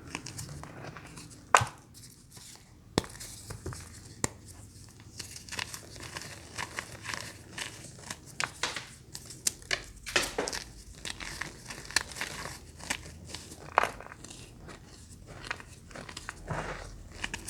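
Crinkly packaging handled close to the microphone: a dense run of irregular crackles and crinkles, with a sharp loud click about a second and a half in.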